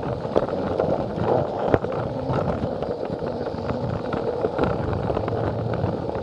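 Plarail toy train running along plastic track: a steady motor and gear drone with irregular clicks as the wheels pass the rail joints, one sharper click about two seconds in.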